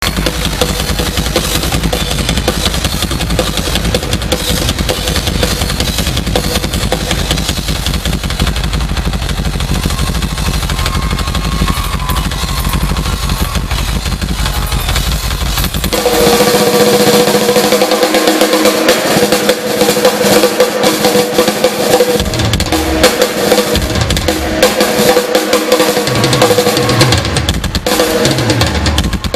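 Live drum solo on a rock drum kit, with rolls and snare and bass-drum hits, loud and heavy at first. About halfway through the low end thins out into separate hits and a steady held tone sounds over the drums.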